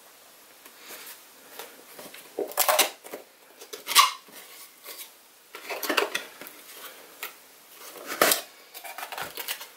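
Cardboard lens box handled and opened by hand: flaps and box scraping and rustling, with a few sharper scrapes and taps about three, four, six and eight seconds in.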